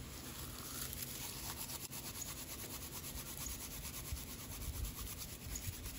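Dry leaves being crushed and rubbed between the palms, a dry rustling in quick repeated strokes as they break down into particles and dust for a tinder bundle.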